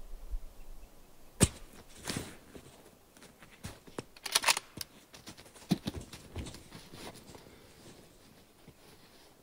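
Clothing rustling and scattered knocks and clicks as a person kneels and lies down prone on a shooting mat behind a rifle; the loudest is a single sharp knock about a second and a half in.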